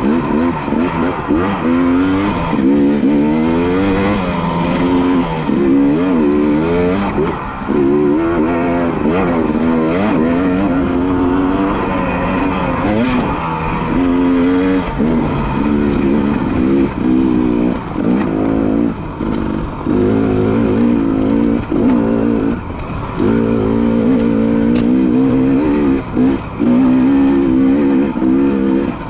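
Dirt bike engine revving up and down over and over as the rider works the throttle, with a few brief drops where the throttle is shut off.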